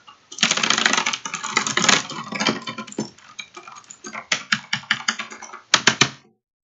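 A fast, dense clatter of clicks that thins out about halfway through, with a short loud flurry near the end.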